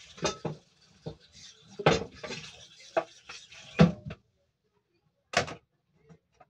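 Scattered knocks and clatters of kitchen things being handled on a table, about seven in all; the loudest come about two and about four seconds in, with one more past five seconds.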